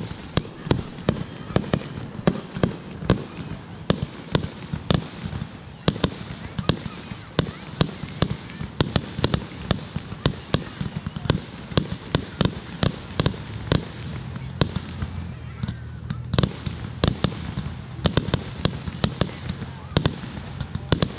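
Fireworks going off: a dense, irregular run of sharp bangs, several a second, as aerial shells burst.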